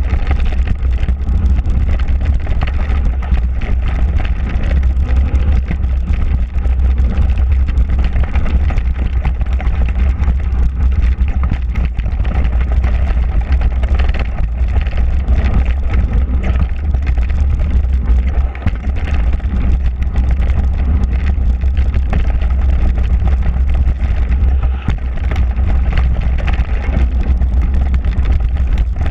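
Mountain bike riding fast down a dirt trail, heard from a handlebar-mounted action camera: a loud, steady rumble of wind on the microphone and tyres rolling on packed dirt, with a constant scatter of small rattles and knocks from the bike over the bumps.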